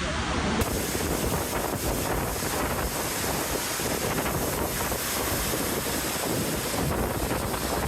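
Steady roar of Takakkaw Falls, the water plunging close by, with wind and spray buffeting the microphone in low rumbles.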